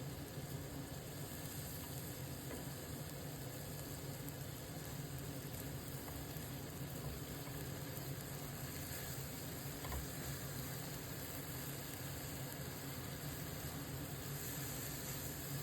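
Beef mince and vegetables sizzling steadily in a frying pan as they sauté.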